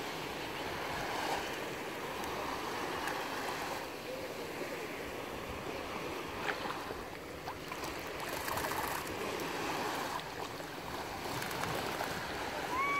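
Small sea waves washing and lapping, a steady watery wash with a few faint clicks.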